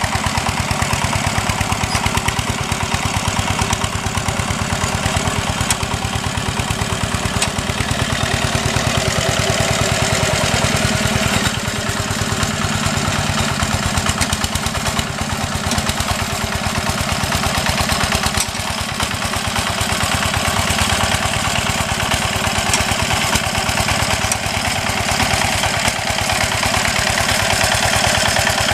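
Two-wheel walk-behind hand tractor's single-cylinder diesel engine running steadily with a rapid, even beat, working under load as the tractor ploughs through paddy mud.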